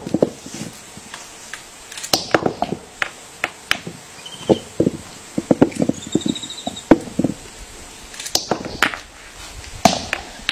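A monkey pounding a stone against a wooden log: a run of sharp, irregular knocks, sometimes several a second, in uneven bursts.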